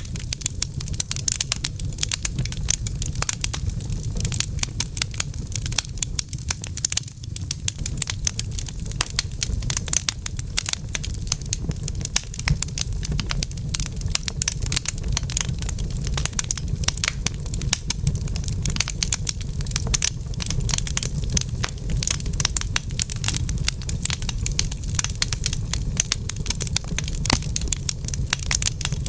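Wood fire crackling in a fireplace: a dense, irregular stream of rapid pops and snaps over a steady low rumble.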